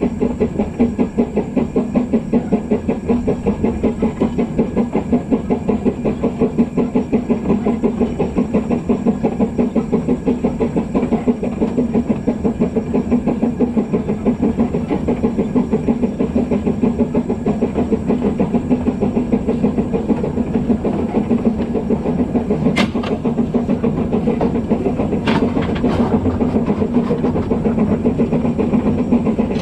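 Narrow-gauge steam locomotive 'Tom Rolt' running under steam, its exhaust beating in a steady, even rhythm over a hissing background. Three sharp clicks come a little over two-thirds of the way through.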